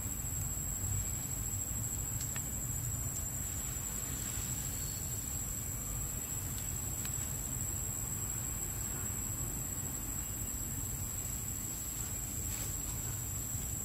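Forest ambience: a steady, high-pitched insect drone over a low rumble, with a few faint ticks.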